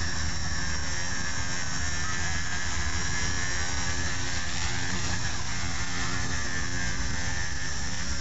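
Blade mCP X micro RC helicopter in flight, a steady high whine from its electric motor and rotor that rises and falls slightly in pitch as it is manoeuvred.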